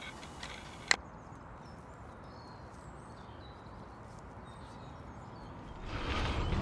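Quiet outdoor background with faint, scattered high chirps like distant birds, and one sharp click about a second in. Near the end a louder rough rolling noise starts: a loaded fishing barrow being pushed along a dirt track.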